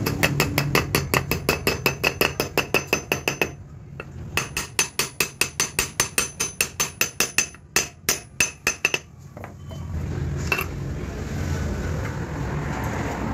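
A steel hammer strikes a drift held against the wheel bearing in a motorcycle's spoked wheel hub, working the bearing in its seat. The taps are quick, even and ringing, about five or six a second, in two long runs with a short pause between. After about nine seconds the taps stop and a steady background rumble remains.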